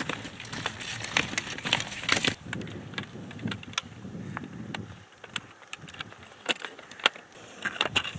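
Cross-country skis and ski poles clicking and clacking as a group of skiers shuffle and plant their poles on grass, in irregular sharp knocks. A low rumble underneath fades out about five seconds in.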